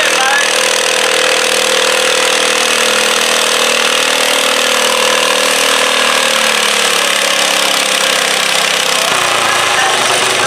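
Stock garden tractor engine running hard at full throttle while pulling a weight-transfer sled. Over the last few seconds its note sinks steadily as it labours under the growing load.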